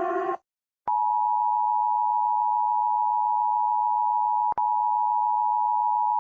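Emergency Alert System attention signal: a steady, piercing two-tone beep that starts about a second in and is briefly broken about four and a half seconds in. Just before it, a siren-like multi-tone sound cuts off.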